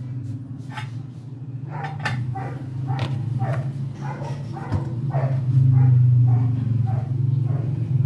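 A dog barking repeatedly in short calls, over a steady low hum.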